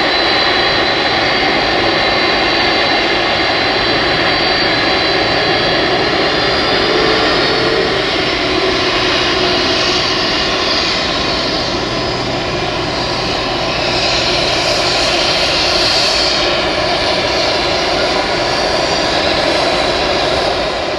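Jet engines of a four-engined Boeing 747-400 freighter running on the ground, a steady loud rush with a high engine whine over it. The whine brightens and swells a little past the middle, and the sound fades out at the very end.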